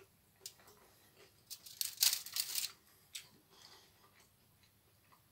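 Quiet eating and handling sounds of a slice of pizza: a few faint clicks and one brief crackling rustle about two seconds in.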